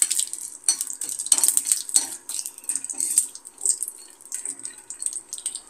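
A metal spoon stirring cashews and raisins in a small steel kadai, clinking and scraping against the pan again and again, over a light sizzle of frying ghee.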